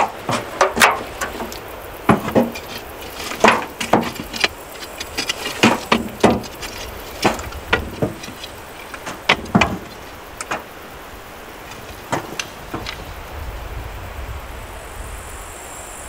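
Irregular metal knocks, clanks and scrapes from a rusty steel barrel being worked on from the inside with a stick, coming thick for about the first ten seconds, then sparser over a low wind rumble.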